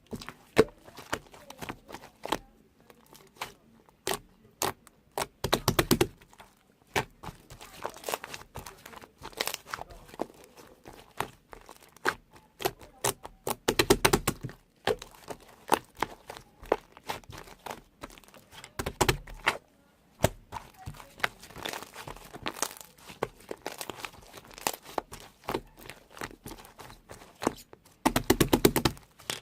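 Irregular close handling sounds: clicks, taps and crinkling, with a few louder clusters about 6, 14 and 19 seconds in and near the end.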